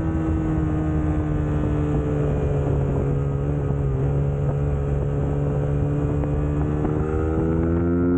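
Suzuki GSX-S150's single-cylinder engine running under way. Its note slowly eases off, then climbs again as it accelerates near the end, with some wind noise.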